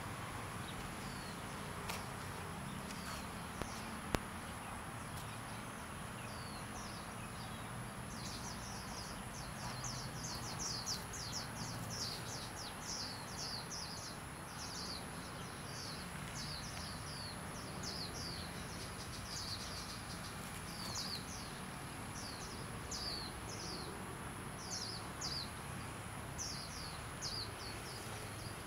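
Small birds chirping, short quick high chirps that come thick and fast from about a third of the way in, over a steady high hiss and low outdoor rumble. One sharp click about four seconds in.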